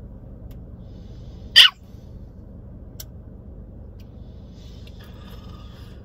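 A single short, sharp sneeze about one and a half seconds in, over a steady low hum.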